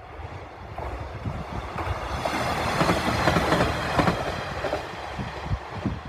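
A diesel train passing over a level crossing. Its wheels knock over the rail joints in quick succession, and the sound swells to its loudest about halfway through before easing off.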